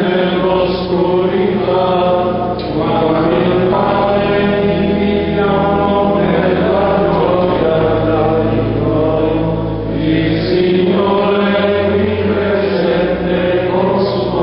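Men's voices singing a slow liturgical chant together, in long held phrases with brief breaks about two and a half seconds in and about ten seconds in.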